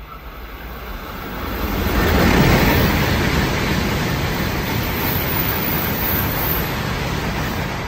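N700-series Tokaido Shinkansen train passing through the station at speed without stopping: a rush of wheel, rail and air noise that swells over the first two seconds, then holds steady as the cars go by and begins to fade at the end.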